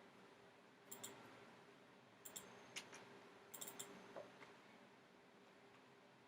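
Faint computer mouse clicks, a few in quick pairs, between about one and four seconds in, over a low steady hum.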